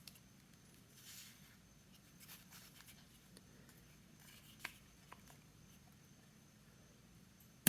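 Faint scraping and rustling of plastic parts being handled with light clicks as the old battery is taken out of a small plastic battery pack, ending in one sharp click.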